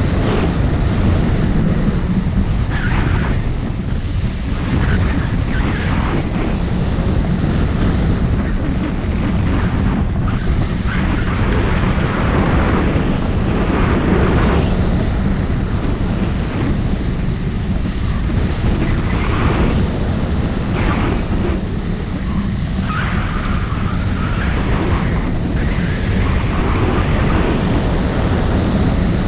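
Loud, steady rush of wind over the microphone of a camera mounted on a hang glider's wing in flight, swelling and easing a little as the airflow shifts.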